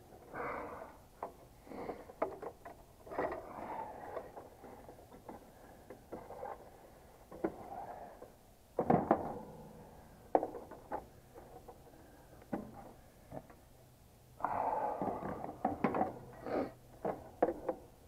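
Scattered clicks, knocks and rustling of hand work with tools and wires inside a heat pump's control panel, with one sharper knock about halfway through and a busier stretch of clatter near the end.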